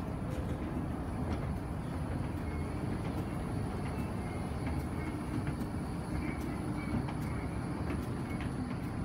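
Steady low mechanical rumble of a moving escalator mixed with the background hum of a large terminal hall, with a few faint ticks.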